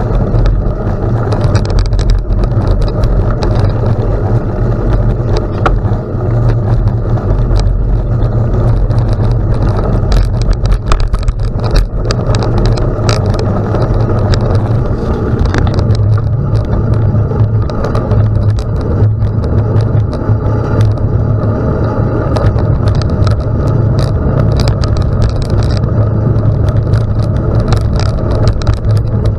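Riding noise from a gravel bike: steady wind rumble on the microphone, with tyres crunching over gravel and frequent small clicks and rattles from the bike.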